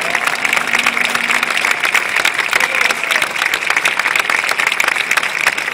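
A large audience applauding, dense clapping from many hands with a few scattered shouts, as the last held note of the music dies away in the first half second.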